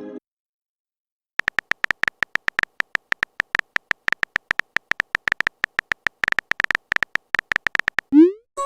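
Rapid, even run of short high clicks, about seven a second, lasting several seconds: the typing sound effect of a texting-story chat app. It stops near the end, followed by a short rising blip.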